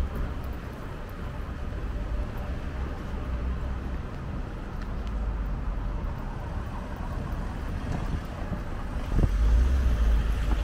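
Street traffic noise: a steady low rumble of passing cars, swelling near the end.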